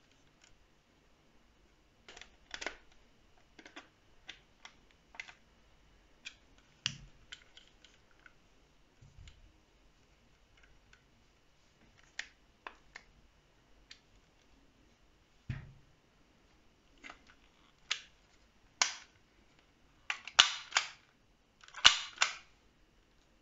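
Scattered sharp clicks and knocks of metal and plastic parts being handled and fitted together on an airsoft pistol and its 3D-printed stock, with a screwdriver working a screw. The loudest, rattly clicking comes in a few short clusters near the end.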